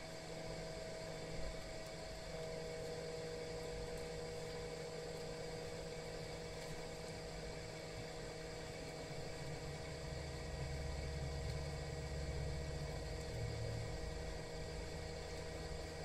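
Steady whir of a hot-air blower heating a smartphone's touchscreen to loosen it from the frame, with a low rumble growing from about ten seconds in.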